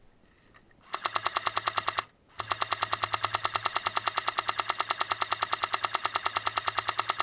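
Airsoft M60 electric support gun firing full-auto: a burst of about a second, a brief pause, then a long burst of about five seconds, at roughly a dozen shots a second.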